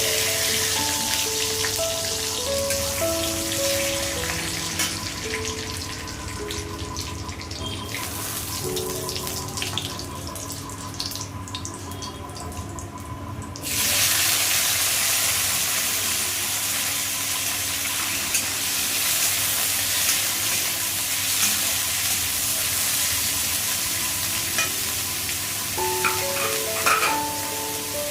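Potatoes frying in hot oil, a steady sizzle that jumps suddenly louder about 14 seconds in. Light background music plays over it in the first half and again near the end.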